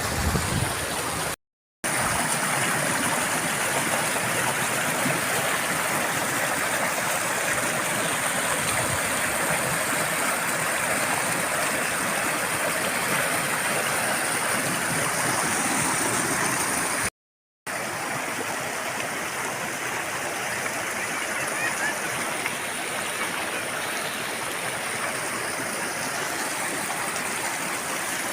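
A mountain river rushing steadily over its bed, a continuous wash of running water. The sound cuts out completely for a moment twice, about a second and a half in and again about two thirds of the way through.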